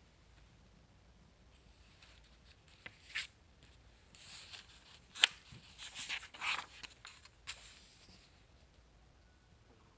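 Paper pages of a thin printed book being turned by hand: a run of short rustles and flicks from about three seconds in until about eight seconds, with one sharp snap about halfway through.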